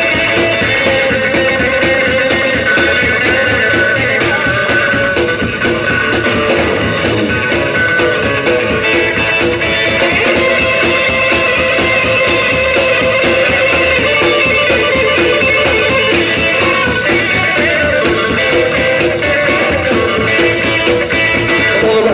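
Live rockabilly band playing an instrumental passage, with an electric guitar picking out a lead line over upright bass and a steady beat. No singing.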